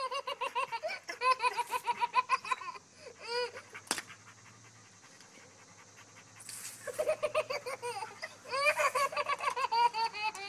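A baby laughing in two runs of quick, high-pitched giggles with a quiet pause in between, and a single sharp click about four seconds in.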